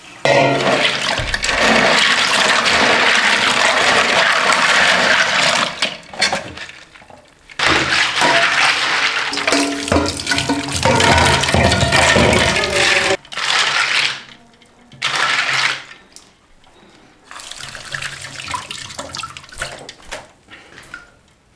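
Tap water running hard into a metal bowl of water snails in a kitchen sink, splashing as the snails are rinsed. The flow runs long for the first half, then stops and starts in shorter, quieter bursts.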